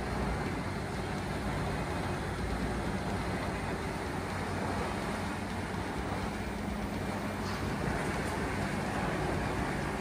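CBI 6400 CT horizontal grinder's 1050-horsepower engine running steadily while the machine grinds wood waste, a steady low mechanical hum.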